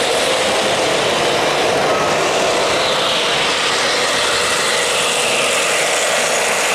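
O-gauge model trains running on three-rail track: a steady rolling rumble and whir of wheels and motors, with a faint whine that slides down in pitch midway.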